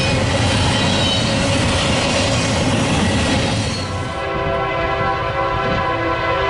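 Train rolling past with a steady rumble of wheels on rail; about four seconds in, a locomotive air horn sounds, a loud, steady chord that holds on.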